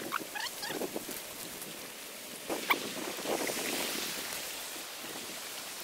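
Footsteps and rustling through grass and leafy plants as a person and a dog walk. There are a few faint short chirps in the first second and a couple of sharp clicks in the middle.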